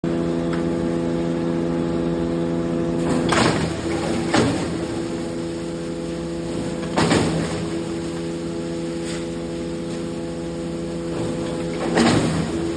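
Wood crusher machine running with a steady mechanical hum, briefly growing louder and harsher four times.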